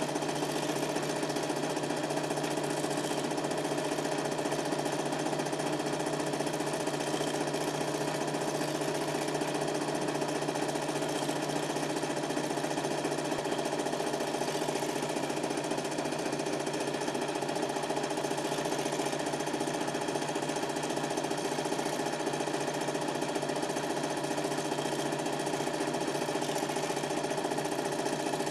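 Super 8 film projector running, a steady mechanical rattle that does not change.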